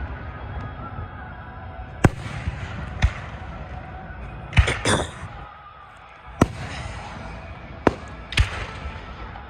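Fireworks bursting overhead: about seven sharp bangs at uneven intervals, some close together in pairs.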